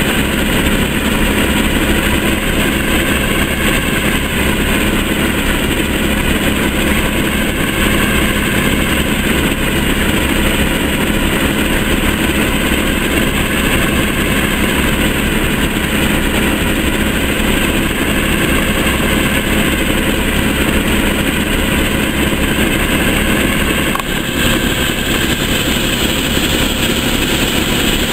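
Class 20 diesel locomotive's engine idling, a loud, steady running sound that does not change.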